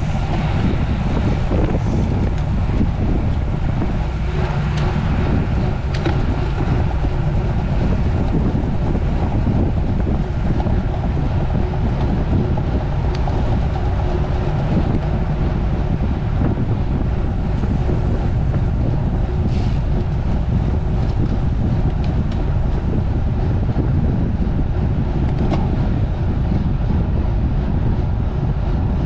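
Steady wind buffeting the microphone with a low rumble underneath, as from a camera carried on a road bicycle at race speed. A few faint clicks.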